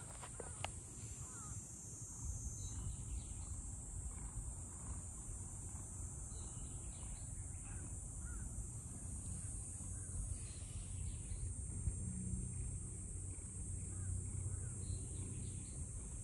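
Outdoor ambience: a steady high-pitched insect drone, with faint scattered bird calls over a low rumble.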